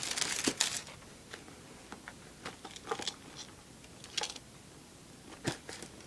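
Football boots and their paper packaging being handled: a short rustle in the first second, then scattered light clicks and taps.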